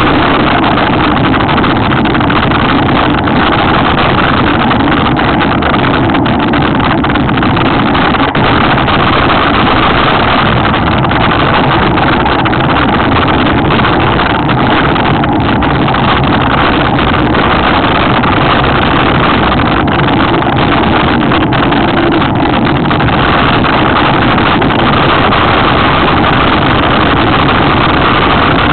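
Mountain bike riding fast down a rough downhill trail: a steady, loud rush of wind and tyre noise, with small scattered knocks and rattles from the bike.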